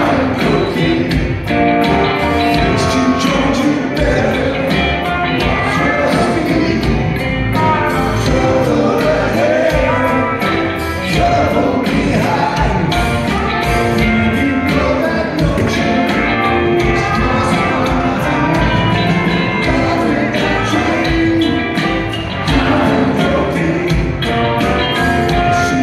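A rock band playing live, with electric guitar, upright bass, a drum kit and a singing voice, heard from among the audience in a theatre hall.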